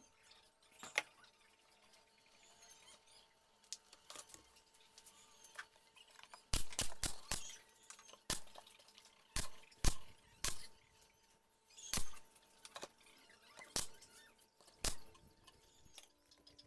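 Pneumatic nail gun firing into plywood panels of a subwoofer enclosure: a string of about ten sharp shots from about six and a half seconds in, irregularly spaced half a second to a second and a half apart.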